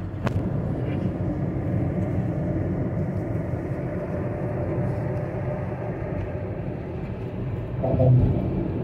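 Steady low road and engine rumble inside a moving car's cabin at cruising speed. There is a sharp click just after the start, and a brief louder tone-like swell near the end.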